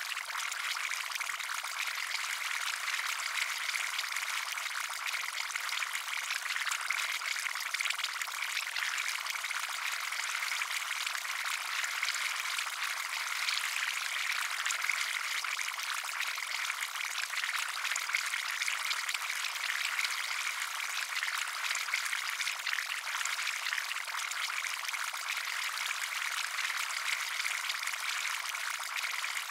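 Bubbling-potion sound effect: liquid bubbling steadily with dense, fast small pops, light and high with no deep gurgle.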